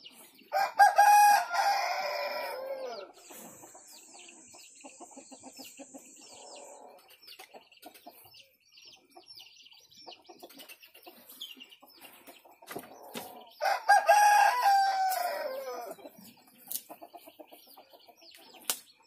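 A rooster crows twice, each crow lasting about two and a half seconds and trailing off at the end. The first comes just after the start and the second a little past halfway through. Faint scattered ticking and clicking fill the gaps between them.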